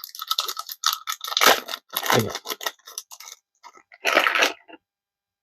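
Foil wrapper of a trading-card booster pack crinkling and tearing as it is opened, in quick crackly bursts, with a last short burst about four seconds in.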